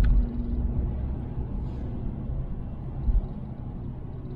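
Low, steady rumble of a car in motion heard from inside the cabin, with a short thump a little after three seconds in.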